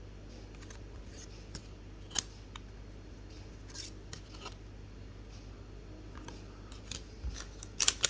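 Scattered light clicks and snips of trading cards and pack wrappers being handled, coming closer together near the end.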